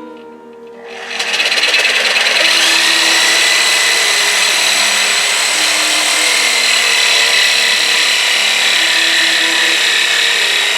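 A power tool cutting metal starts about a second in and runs steadily with a high-pitched whine, cutting the ears off a transmission case. Background music with changing notes plays underneath.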